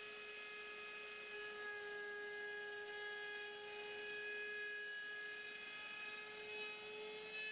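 Mafell router with a round core bit running at a steady high-pitched whine while it makes a straight fluting cut along a turned wooden blank.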